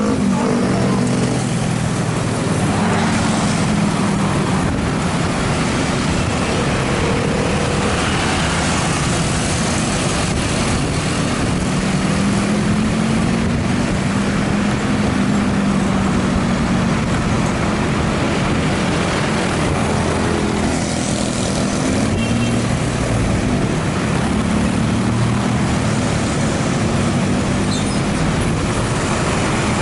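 A motorcycle engine running while riding in road traffic, its pitch rising and falling gently with speed, over a steady rush of wind and road noise.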